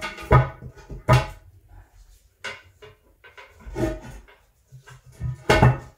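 Hard clunks and knocks against a porcelain toilet tank, five or six spaced over several seconds, as the holder of a handheld bidet sprayer is hooked onto the tank.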